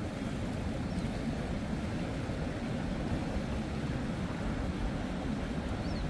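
Steady wash of breaking ocean surf, with wind rumbling on the microphone.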